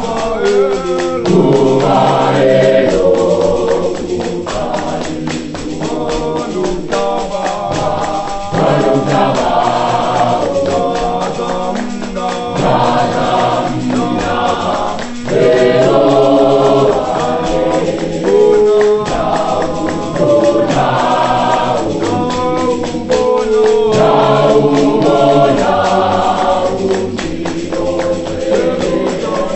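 Gospel choir singing a song in isiXhosa in several-part harmony over a steady beat.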